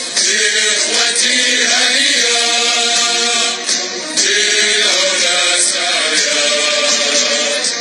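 Several voices chanting together in a song, steady and loud.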